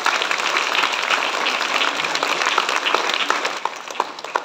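Audience applauding: dense clapping that thins to scattered single claps near the end.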